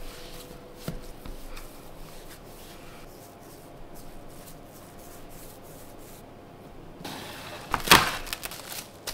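Hands rolling a soft dough log on a wooden tabletop, a faint rubbing, then about seven seconds in clear plastic wrap crinkles loudly as it is pulled around the log.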